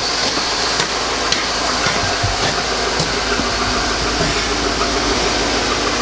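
Chevy Avalanche's V8 idling steadily, with a few light clicks over it.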